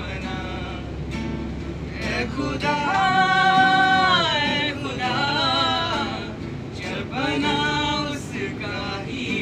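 A young man singing a slow melody unaccompanied, drawing out long, wavering held notes, the longest and loudest about a third of the way in. Under the first few seconds runs the steady low rumble of the moving train carriage.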